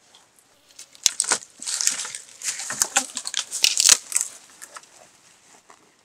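Dry grass and twigs crackling and rustling, loudest in the middle, with sharp snaps about a second in and again near four seconds.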